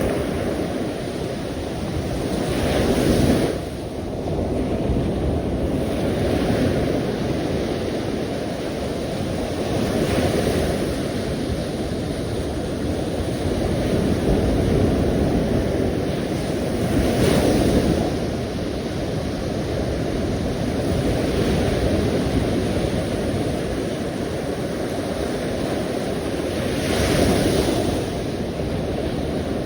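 Sea waves breaking on a shore: a continuous wash of surf that swells into a louder breaker every several seconds.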